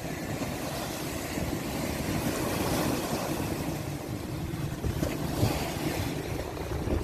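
Sea surf breaking and washing over a rocky shore: a steady rushing hiss with a low rumble, swelling about two to three seconds in.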